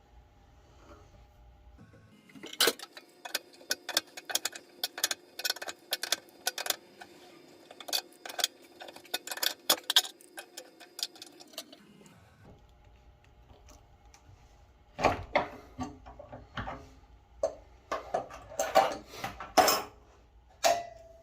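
Irregular sharp metallic clicks and clinks in two bursts of a few seconds each: hand tools and metal plumbing parts knocking together during work on water heater piping.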